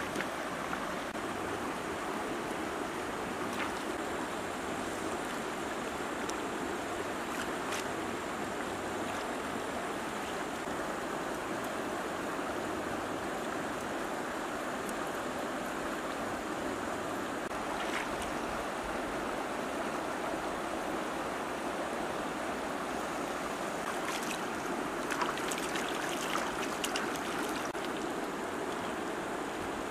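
Shallow stream flowing over stones: a steady rush of running water, with a few light clicks scattered through and a short cluster of them near the end.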